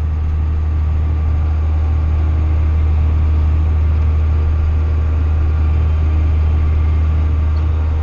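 John Deere 7800 tractor's six-cylinder turbo-diesel engine running at a steady pace, heard from inside the cab as an even low drone.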